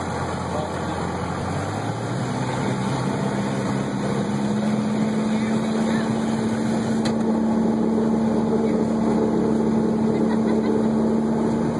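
Cessna 172's piston engine and propeller heard from inside the cockpit. About two seconds in the engine note rises and then holds steady at a higher pitch, growing slightly louder, as the throttle is opened for takeoff.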